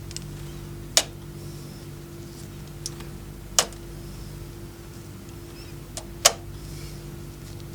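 Motorized plastic marble run: the conveyor motor hums steadily while marbles clack against the plastic track, three loud sharp clacks about two and a half seconds apart with a few fainter ticks between.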